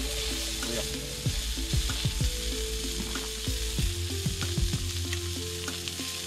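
Food sizzling in a frying pan: a steady frying hiss with scattered small pops and crackles.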